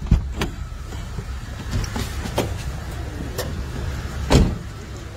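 Low, steady rumble of a car moving, heard from inside the cabin, with several sharp knocks and thumps; the two loudest come just after the start and about four seconds in.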